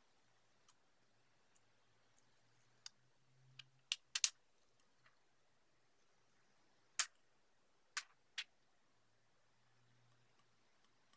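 Scattered light clicks and taps of a loose touch-screen glass panel being handled over the tablet: about eight short sharp ticks, the loudest bunched about four seconds in and three more around seven to eight seconds in.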